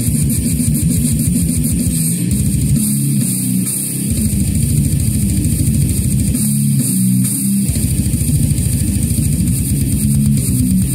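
Brutal death metal: electric guitar riffing over fast drums. The rapid low drumming drops out twice for about a second, about three seconds in and again about six and a half seconds in, leaving the guitar chords.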